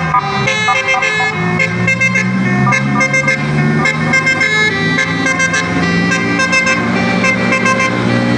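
Bus telolet horn: the bus's set of tuned horns playing a quick melody of short notes stepping up and down in pitch, over a steady low tone.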